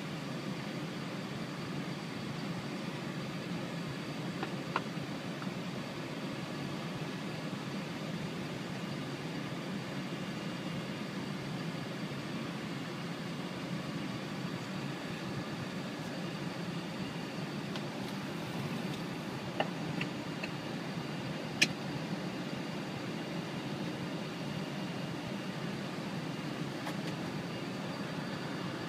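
Steady hum inside a Boeing 747-400 cockpit as the airliner taxis slowly in to the gate, its engines and air systems running. A few faint clicks sound over it, the sharpest about three-quarters of the way through.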